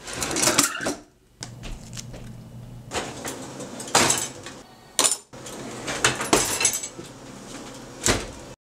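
Metal cutlery (forks and spoons) clinking and rattling in several separate bursts, like cutlery being handled in a drawer and dropped into a dishwasher basket. The sound cuts off abruptly near the end.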